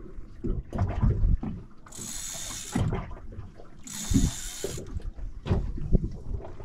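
Fishing reel ratcheting and clicking while a hooked shark is played on a tightened drag, amid irregular low knocks, with two short hissing bursts about two seconds apart.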